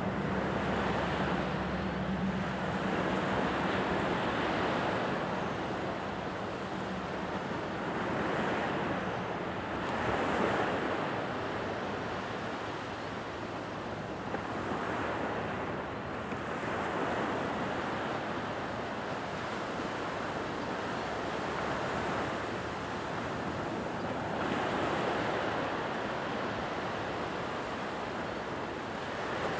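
Gulf surf breaking on the beach: a steady wash of waves that swells and eases every few seconds. A low steady hum fades out within the first few seconds.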